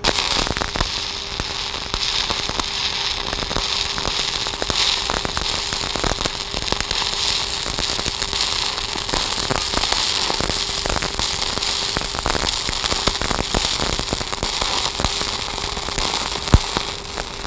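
Stick-welding arc on a 1/8-inch 7018 electrode at about 135 amps, a continuous dense crackle full of sharp pops, laying a wide side-to-side fill pass on half-inch steel plate. A faint steady hum runs beneath it, and one louder pop comes near the end.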